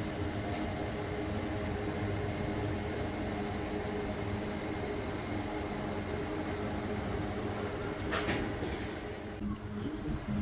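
Steady low machine hum, with a short clattering knock about eight seconds in.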